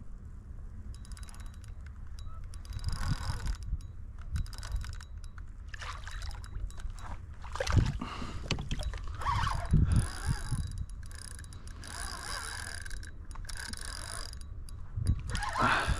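Water splashing and sloshing around a kayak while a hooked redfish is fought, in irregular bursts over a steady low rumble.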